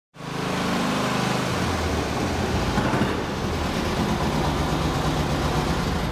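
Volkswagen Type 2 bus's air-cooled flat-four engine running loudly inside a concrete parking garage, its pitch settling during the first second and a half and then holding steady.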